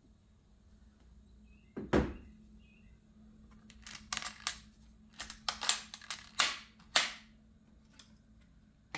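A single heavy thump about two seconds in, then a quick, uneven run of about a dozen sharp clicks and snaps over some three seconds, like hard objects being handled.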